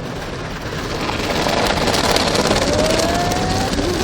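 Automatic car wash heard from inside the car: a loud rushing of water spray and spinning brushes, growing louder about a second in as the brushes close in on the car, with a faint rising whine near the end.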